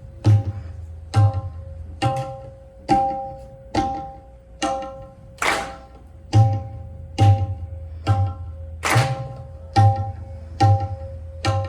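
Tabla played at a slow, even pace, about one stroke a second, likely the teentaal theka. Each stroke pairs a deep boom from the bayan (left-hand bass drum) with a ringing, tuned tone from the dayan (right-hand drum).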